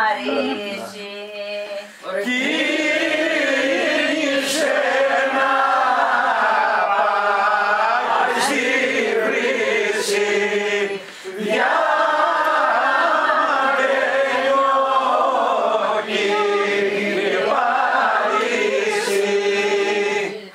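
A group of men and women singing a Greek demotic folk song together in long, drawn-out phrases. The singing breaks off briefly about two seconds in and again about eleven seconds in.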